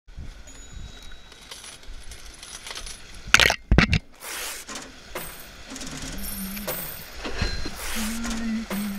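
Whitewater kayak running a shallow creek riffle: steady rushing water and paddle splashes, with a cluster of sharp, loud knocks about three and a half seconds in and a few lighter knocks later, typical of the plastic hull or paddle striking rocks in low water.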